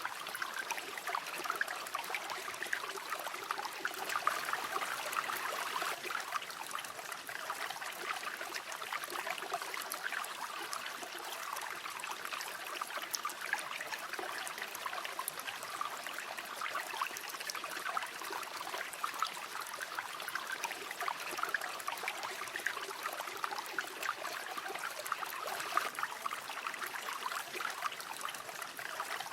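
Shallow river water flowing steadily over stones, a continuous babbling and trickling.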